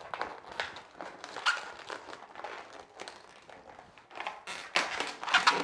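Inflated latex balloons being handled: irregular squeaks, rubbing and small crinkles of rubber on latex as a clear hair elastic is stretched and wrapped around the knotted balloon nozzle, the handling getting louder and busier near the end.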